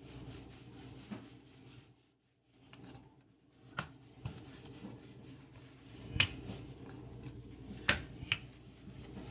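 Wooden rolling pin rolling out wheat-flour dough on a wooden cutting board: a continuous rubbing with a few sharp knocks of the pin against the board, the loudest just after six seconds and near eight seconds.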